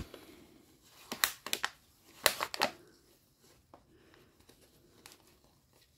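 Thin disposable plastic cup crinkling and crackling in the hands as a moss-wrapped violet is pushed down into it. There is a cluster of sharp crackles about a second in and another about two seconds in, then faint rustling.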